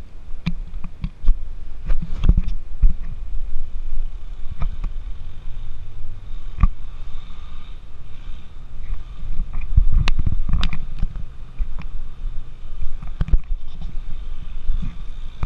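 Wind buffeting the microphone in an uneven low rumble, with scattered knocks from the handheld camera being carried and moved.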